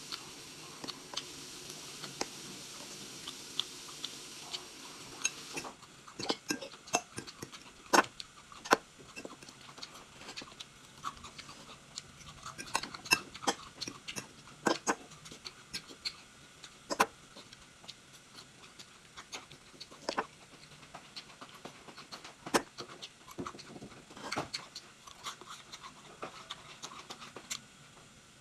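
Eating sounds: irregular sharp clicks and taps of a metal fork against a ceramic bowl, with chewing and mouth sounds. A steady hiss runs under the first five or so seconds, then stops.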